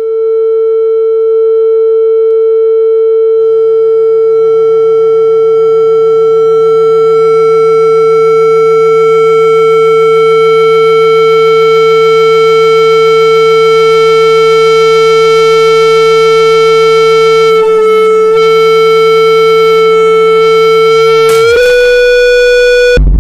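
A loud, steady pure tone from a loudspeaker driving a wine glass at its resonant frequency, held without a break. About 21 seconds in the glass shatters with a brief crack, the tone jumps up slightly in pitch, and it cuts off abruptly near the end.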